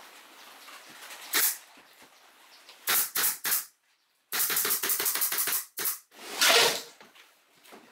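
Pneumatic nail gun firing several sharp shots into plywood panels, each a quick snap with a puff of air, with a dense run of rapid clicks in the middle and a longer hiss that swells and fades near the end.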